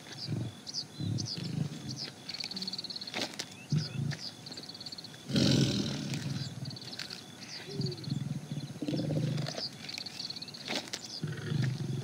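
A tiger growling and roaring in repeated short bouts, the loudest about five seconds in, with faint high chirps throughout.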